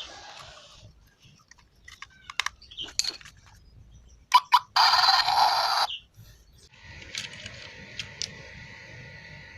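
Mini 1:43-scale RC truck's electronic sound module playing through its tiny speaker: a few clicks, a loud burst lasting about a second near the middle, then from about seven seconds a steady simulated engine hum with a thin high whine and light ticks.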